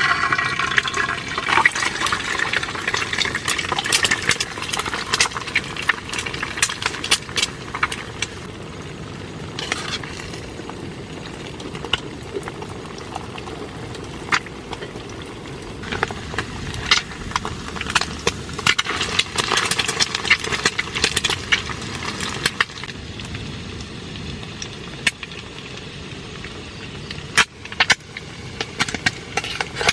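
Rain falling on a tent, with many separate drops striking the fabric over a steady hiss. It comes heavier in two spells, near the start and about two-thirds of the way through.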